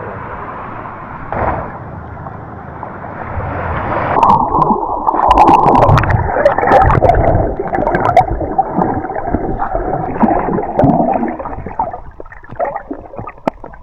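Sea water sloshing and gurgling during snorkelling, muffled at first, then from about four seconds in louder, with bubbling, splashes and sharp clicks.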